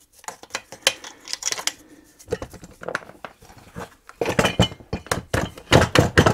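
Clicks and knocks of a belt sander's plastic housing and metal parts being handled and turned over, with a quicker, louder run of clatter in the second half.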